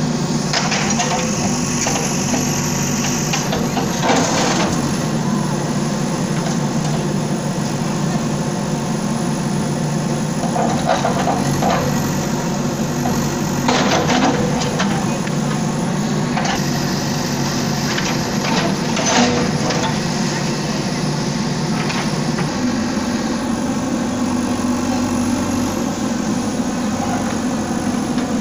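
Bulldozer's diesel engine running steadily, with a few short knocks and crunches over it.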